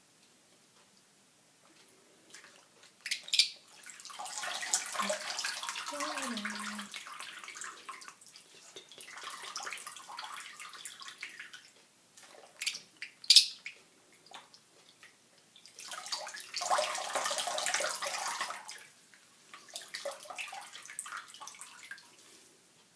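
Parrotlet mimicking running water: four bursts of hissy, splashy noise lasting one to four seconds each, with a short sharp chirp about three seconds in and another about thirteen seconds in.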